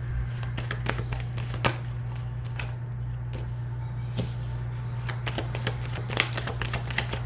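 A tarot deck being shuffled by hand: irregular light card clicks and slaps, coming more thickly in the second half, over a steady low hum.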